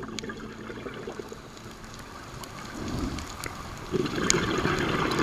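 Bubbling, rushing water with scattered clicks, turning sharply louder about four seconds in.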